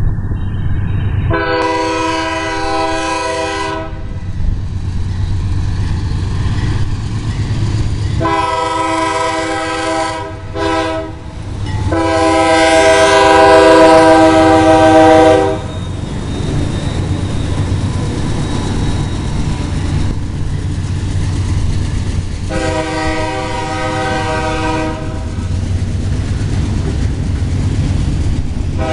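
Diesel freight locomotive's multi-note air horn sounding the grade-crossing signal: two long blasts, a short one and a long one, the last the loudest as the locomotive passes close by, then one more long blast later on. Under the horn runs the steady low rumble of the locomotives and the freight cars' wheels on the rails.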